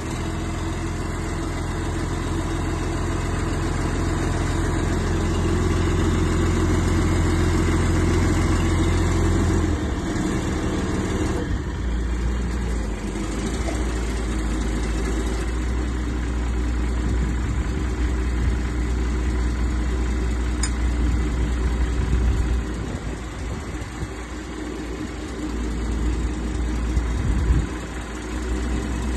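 Truck diesel engine running to drive the hydraulics of a Unic A340K truck-mounted crane as the crane is worked by remote. Its note changes about ten seconds in and again shortly after, and it eases off briefly near the end.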